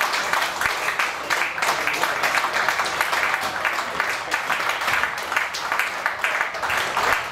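Spectator crowd clapping steadily, with voices mixed in.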